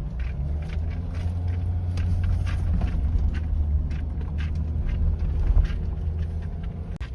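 Car driving, a steady low rumble of engine and road, with scattered light clicks and ticks over it.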